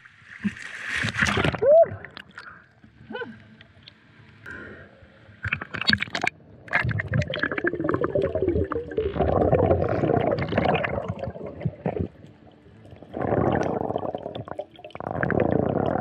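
A splash as a person drops into the water, then muffled underwater gurgling and bubbling picked up by the submerged camera, in long bursts in the middle and twice more near the end.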